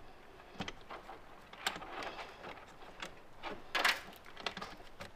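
Handling noise from fitting a car's air intake: light clicks, knocks and rustling of the corrugated plastic duct hose and the metal adapter at the mass airflow sensor, with a louder scrape near four seconds in.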